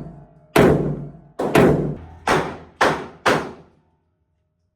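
A string of about six gunshots from a handgun or rifle fired at a range, roughly half a second apart, with two coming almost together.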